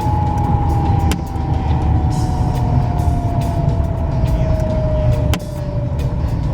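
Car engine braking in second gear with the throttle shut, slowing from high revs toward 1000 rpm: a low engine and road rumble under a whine that falls steadily in pitch as the revs drop. Two sharp clicks sound, one about a second in and one near the end. This is a throttle-off coast-down run for the ECU's misfire-detection adaptation.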